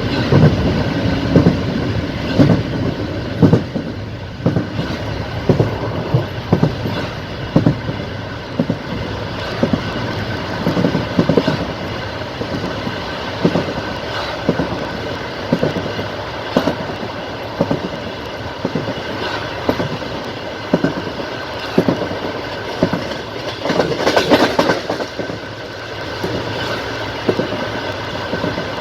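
Passenger train's wheels clicking over rail joints: a rhythmic clickety-clack of knocks about a second apart over the steady rumble of the moving train. A louder rushing stretch comes about 24 seconds in.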